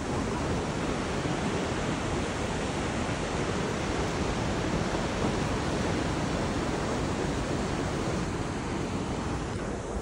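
Steady rushing of a fast-flowing, torrential mountain river running white over rocks.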